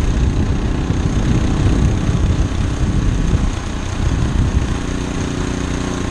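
Small engine of a homemade motorized rail cart running steadily as the cart travels along the rails.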